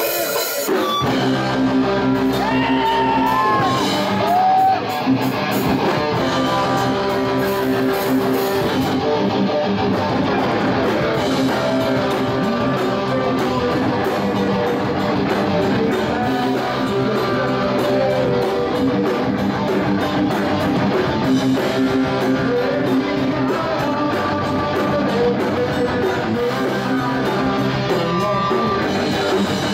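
Live rock band music led by electric guitars ringing out sustained chords.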